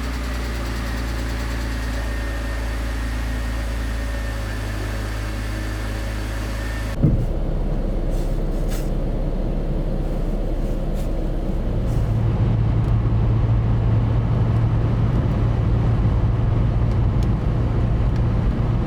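A BMW Z4 3.0i's M54 inline-six engine idling steadily just after start-up, on fresh oil and a new oil pressure sensor. About a third of the way in the sound cuts abruptly, with a thump, to louder and noisier car running with a steady low drone.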